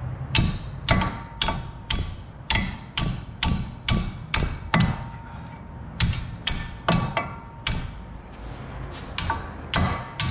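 A hammer striking metal over and over, about two blows a second with a short pause midway, each blow ringing briefly: hammering to free a seized part of a truck's wheel-bearing hub assembly.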